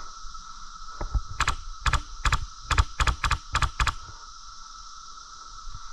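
A quick, irregular run of about nine sharp clicks or snaps over roughly three seconds, then only the steady background hum.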